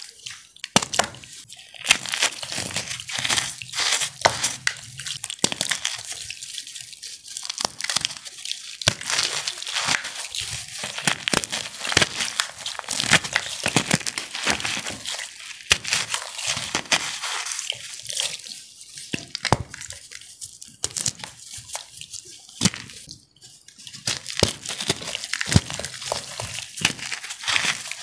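Cornstarch pieces coated in blue iron oxide being squeezed and crushed by hand in water: a continuous run of wet crunching and fine crackling, with drips of water.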